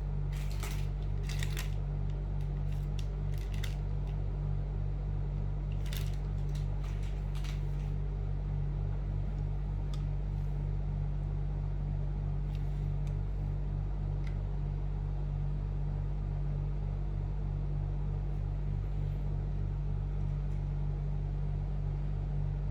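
Small sharp clicks and taps of a screwdriver and hand tools working on a laptop's tiny screws, scattered through the first half and sparser later, over a steady low electrical hum.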